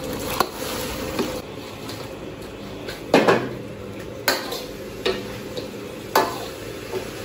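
A metal spatula knocking and scraping against a wok while fried chicken drumsticks are tossed in a thick honey-soy sauce. The sauce simmers steadily underneath, and the knocks come every second or so, the loudest a double clank about three seconds in.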